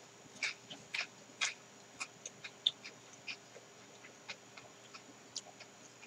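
Faint, irregular crunching clicks of someone chewing a bite of ice cream in a wafer cone, with cookie pieces.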